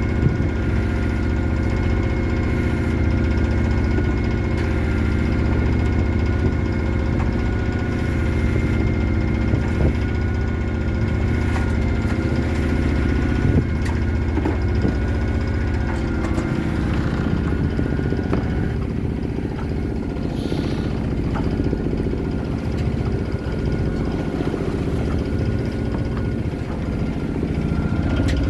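Sailboat's auxiliary engine running steadily: a continuous low drone with several steady whining tones over it, the highest fading about two-thirds of the way through.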